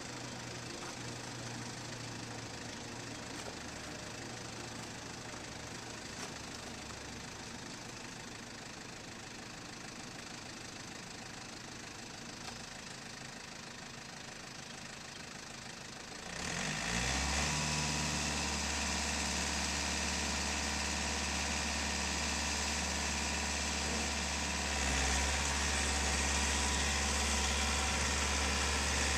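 Compact farm tractor's diesel engine idling, then revving up sharply a little past halfway and running louder and steady under load as the tractor drives out of the mud. It steps up louder again near the end.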